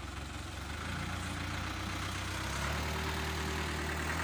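CAT excavator's diesel engine, just started, running at a steady idle; its note and level rise slightly about two-thirds of the way through.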